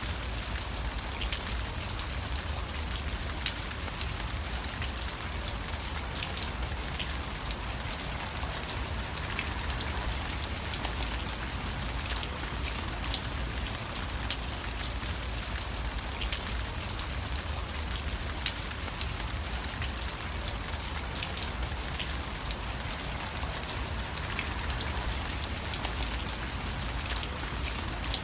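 Steady rain falling, with many small drops pattering on a surface over a low rumble.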